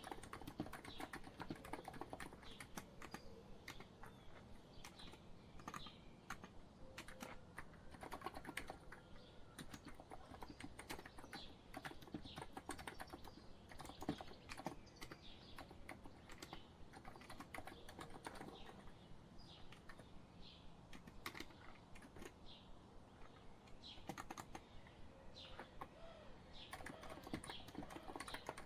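Continuous, irregular typing on a COX Empress electro-capacitive keyboard, soft quiet keystrokes following one another several times a second, with faint bird chirps behind.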